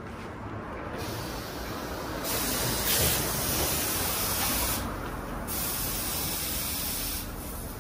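Hissing spray in two long bursts with a short break between them, over a fainter steady rushing.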